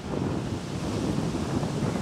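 Low rumbling noise on the camera's microphone, starting suddenly and stopping about two seconds later, as the handheld camera is moved through brush.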